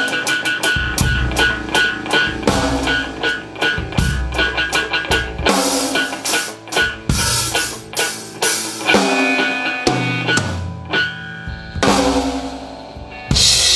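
Live drum kit and electric guitar jamming together: rapid kick, snare and cymbal hits under electric guitar notes. About nine seconds in the drumming thins out while guitar chords ring, and a loud, bright hit comes near the end.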